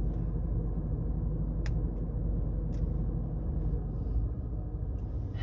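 Handcuffs being worked with a shim: two sharp small metal clicks, over a steady low rumble.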